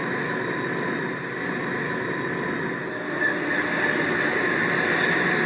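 Freight locomotive running at speed with a steady rumble of wheels and a thin high ringing over it, getting a little louder about three seconds in.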